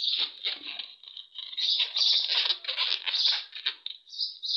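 A hand rubbing and sliding along inflated latex modelling balloons, making a scratchy rubber squeaking in uneven strokes, with a couple of short high squeaks near the end.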